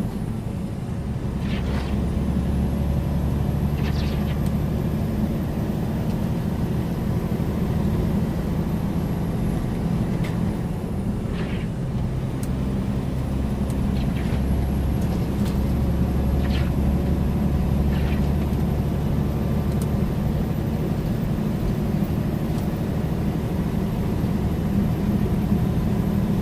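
Loaded semi tractor-trailer heard from inside the cab while cruising at highway speed: a steady low diesel engine drone with road noise, and a few faint ticks here and there.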